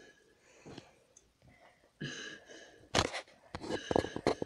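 A child gulping milk from a glass, his mouth burning from a hot chili pepper, with short whimpering, wheezy breaths. About three seconds in comes a sharp, loud click or knock, then a quick run of clicks and gasps.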